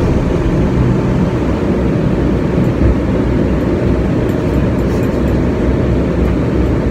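Steady, deep rumble on the flight deck of a Boeing 767 in flight: the even noise of rushing air and engines, unchanging throughout.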